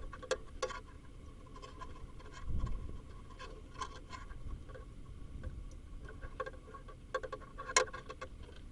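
Small clicks and light scraping of a thin connector tool being worked into a plastic turn signal connector to release the terminals' retaining clips, with a dull bump about two and a half seconds in and a sharper click near the end.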